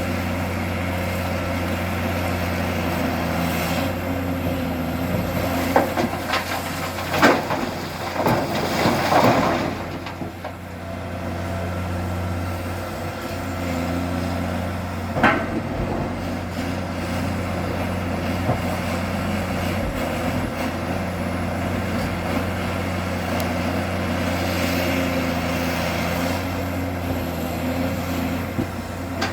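An excavator's diesel engine running steadily, with a few sharp metallic clanks and a short rattling burst about a quarter of the way in, and another single clank about halfway through.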